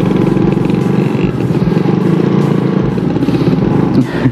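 Suzuki Raider 150's single-cylinder four-stroke engine running steadily under way, heard from the saddle. Near the end the note falls away quickly and the level drops.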